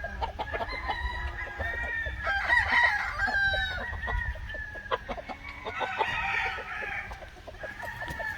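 Many chickens clucking and calling, with roosters crowing over one another.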